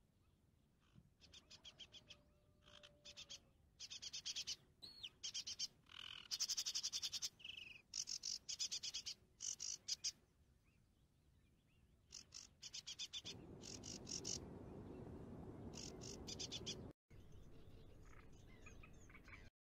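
Frogs calling in short, rapid, rattling pulsed trills, one after another with brief gaps. About two-thirds of the way through, a steady low rushing noise joins in under the calls.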